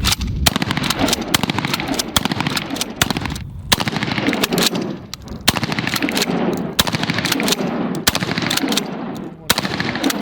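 Rapid gunfire: many sharp shots a second in quick strings, echoing, with a few short breaks.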